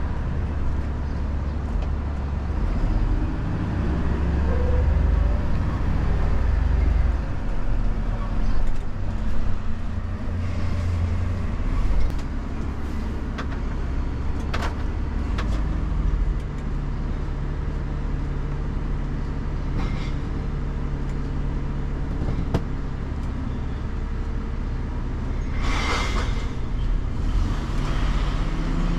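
Bin lorry's diesel engine running, heard from inside the cab, its note changing a few times as the truck drives and slows. There is a short, loud hiss near the end.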